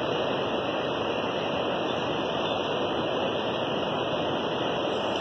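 Steady rushing outdoor noise that holds at an even level, with no distinct event or pitched sound.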